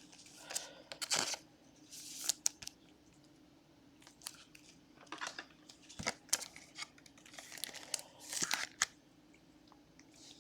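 Trading cards and plastic packaging being handled: scattered short crinkles and rustles with a few small taps.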